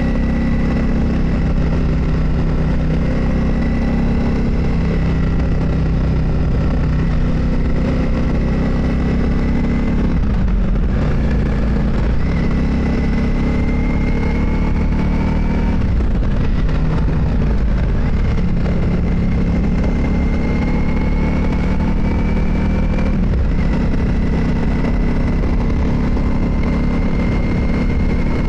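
Motorcycle engine running while riding, steady and loud under continuous road noise. Its pitch dips briefly about ten, sixteen and eighteen seconds in and climbs again between, as the throttle is eased and reopened.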